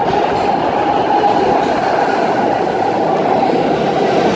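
New York City subway train running, a steady loud rumble of the moving train.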